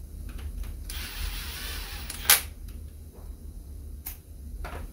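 Bolts and hand tools being handled at an engine block: a soft rustle, then one sharp metallic click a little over two seconds in, with a few lighter clicks near the end, over a steady low hum.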